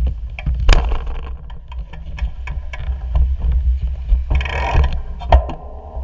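Bicycle rolling over rough pavement, picked up by a handlebar-mounted camera: a loud low rumble with rattles and knocks throughout, a sharp knock about a second in and another near the end, and a brief hiss just before it. The rattling dies away at the very end as the bike slows.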